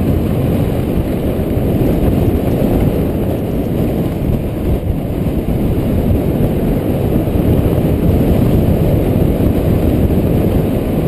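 Wind buffeting a chest-mounted GoPro Hero 2's microphone during a fast downhill mountain-bike descent, a loud, steady low rumble, mixed with the bike rattling over a loose gravel trail.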